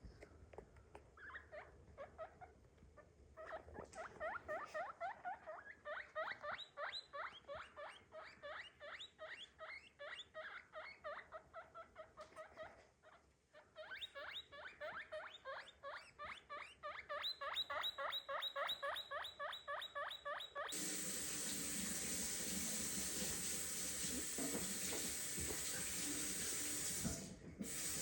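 Guinea pig squeaking in a long run of short, repeated high calls, about three to four a second, with a brief pause partway through. About two-thirds of the way in the calls stop abruptly and a steady rushing noise takes over.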